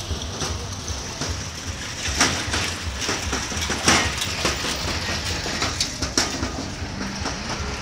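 Footsteps crunching over broken rubble, roughly two a second and uneven in loudness, over a steady low rumble.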